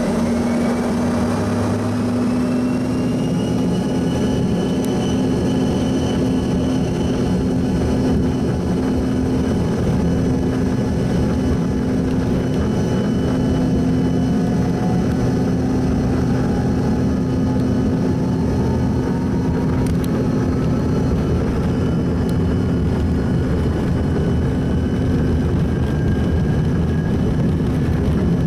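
Cabin sound of an Embraer ERJ-145LR regional jet on the ground: its rear-mounted Rolls-Royce AE 3007 turbofans run with a steady low hum, and whines slowly rise in pitch as the engine speed increases.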